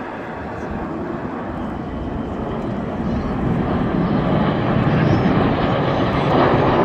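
Red Arrows BAE Hawk jets flying a display, a rushing jet roar that grows steadily louder as the aircraft approach.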